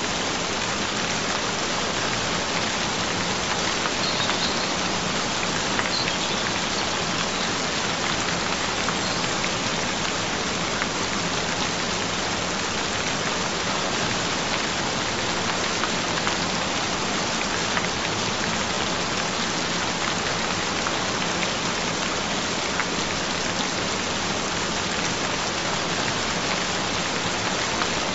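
Steady recorded rain falling in an even, continuous patter, with a steady low tone underneath.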